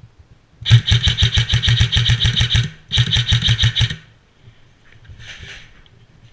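Airsoft electric rifle (AEG) firing on full auto: two bursts of rapid shots at about ten a second, the first about two seconds long and the second about one second.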